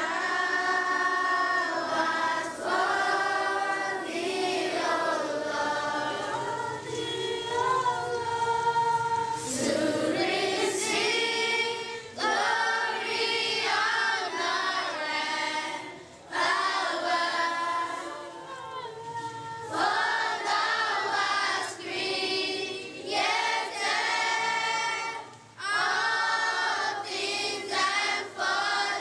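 A large group of schoolchildren singing together as a choir, in sung phrases with short breaths between them.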